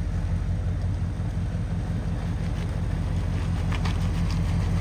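A vehicle engine idling steadily with a low, even hum, with a few light clinks near the end.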